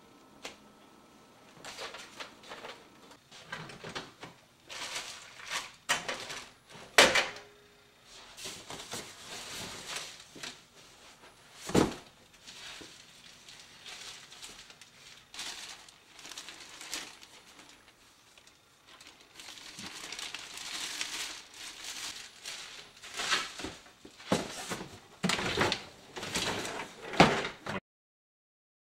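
Things being handled and shifted about at a cluttered garage workbench: irregular clunks, knocks and rustling, with a few sharp louder knocks. It cuts off into silence near the end.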